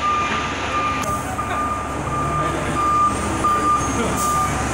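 Heavy rescue fire truck backing into its bay. Its reverse alarm beeps steadily about twice a second over the low rumble of the truck's engine.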